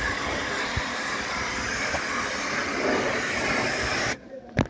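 Pressure-washer jet of water spraying onto stone steps: a loud, steady hiss of spray that cuts off suddenly about four seconds in. A single sharp knock follows near the end.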